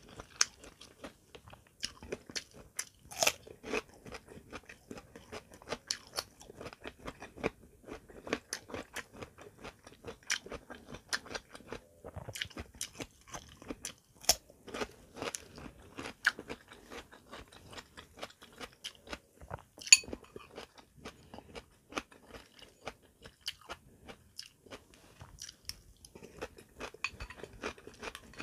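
Close-up eating sounds of a person crunching and chewing raw vegetables, a cucumber slice among them: a steady run of wet, irregular crunches and chews, with one sharp, much louder click about twenty seconds in.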